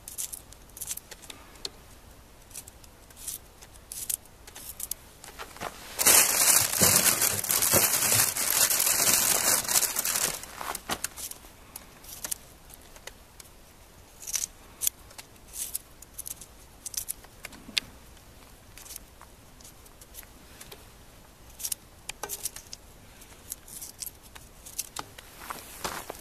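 Scattered small clicks and taps of hands cutting and handling food over a cooking pot, with a loud crinkling, rustling noise from about six seconds in that stops about four seconds later.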